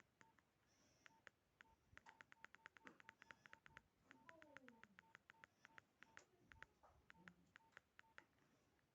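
Faint key presses on a Nokia 1616 keypad, each a click with a short high beep. They come irregularly, several a second in a quick run in the middle.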